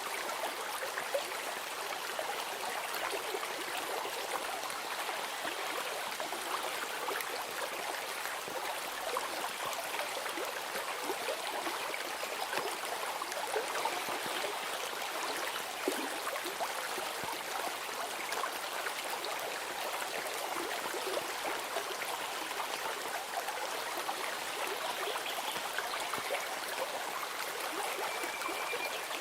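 A stream of running water babbling and trickling steadily, with a few faint short high tones near the end.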